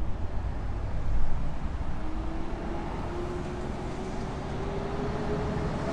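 Car driving slowly, heard from inside the cabin: a steady low engine and road rumble, with a faint whine that rises slowly in pitch from about two seconds in.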